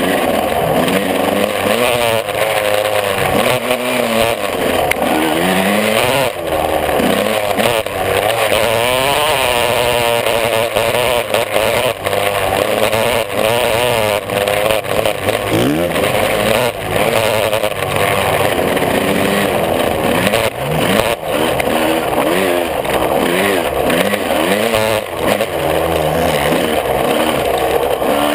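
125 cc two-stroke motocross bike's engine revving hard at close range, its pitch climbing and dropping over and over as the throttle is worked around the dirt track, with wind rushing over the microphone.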